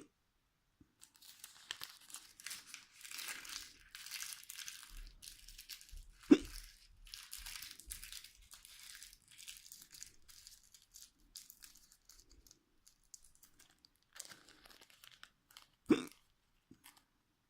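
A person hiccupping twice, short sharp hiccups about ten seconds apart, the first about six seconds in and the second near the end. Between them comes irregular crinkling and rustling, like something being handled or crumpled.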